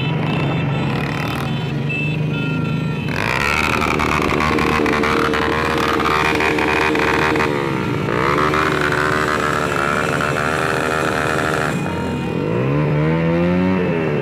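Several small motorcycle engines running in a convoy, their revs rising and falling. A rev climbs sharply near the end.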